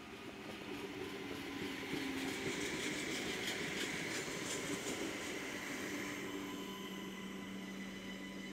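Adelaide Metro 3000-class diesel railcars passing close by: engine drone and wheel noise build to a peak in the middle, then ease. Near the end a steady engine hum is left.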